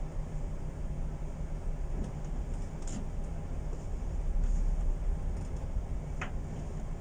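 Steady low rumble aboard a tanker under way in rough seas: the ship's engine drone mixed with wind and sea noise, swelling slightly past the middle. A faint sharp click about six seconds in.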